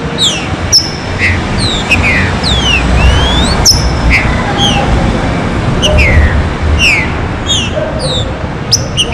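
Songbirds calling in quick succession: many short downslurred whistled chirps and a few longer rising and falling glides, over a steady low rumble, with a few sharp clicks.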